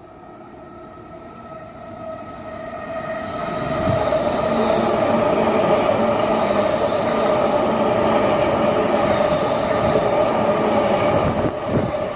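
JR East E233-0 series electric train running through the station at speed without stopping: a rising rush of wheels on rail and traction motor that swells over the first few seconds and then holds loud and steady. Near the end come a few sharp clunks of wheels over rail joints.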